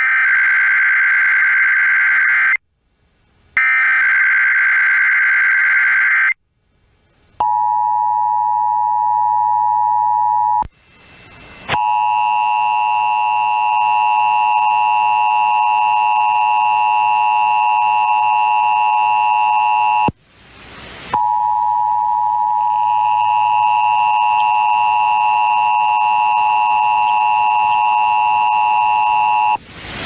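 Emergency Alert System tones broadcast over FM radio for a Required Monthly Test. First come two screeching digital header bursts. Then the steady two-tone attention signal sounds in three stretches, with short breaks between them.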